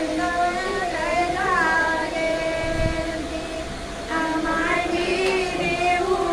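Background music carrying a melody of long held notes with some bends between them, sung or played.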